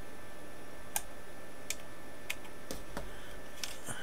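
A handful of small, sharp clicks and ticks from a rubber band being worked onto the drive pulleys of a minidisc deck's disc mechanism, standing in for its snapped belt.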